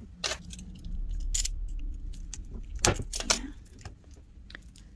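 A merchandise package being handled and opened by hand: a few sharp clicks and light rattling, with a low rumble of handling in the middle.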